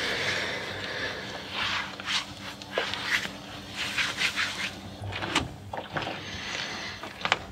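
Hands rubbing and turning wheels of Saint-Nectaire cheese and setting them down on the ripening shelves: irregular scrapes, brushes and soft knocks over a faint steady low hum.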